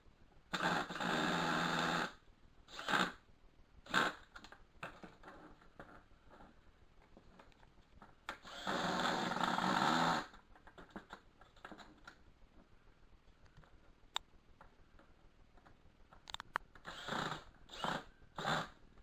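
A cordless screw gun runs in two bursts of a second or two, driving the creeper's wheel bolts snug. Short metallic clicks and knocks come in between and near the end.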